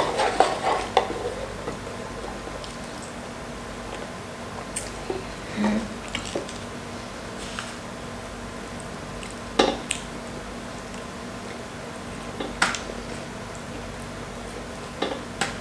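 Eating sounds: a cluster of clicks and rattles in the first second or so as a drink cup is handled and set down, then fingers tearing apart fried chicken, with soft squishy sounds and a few sharp clicks against the plate spread through.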